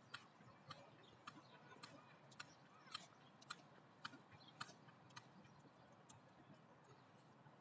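Faint footsteps on a paved path, about two sharp clicking steps a second, growing fainter in the last few seconds.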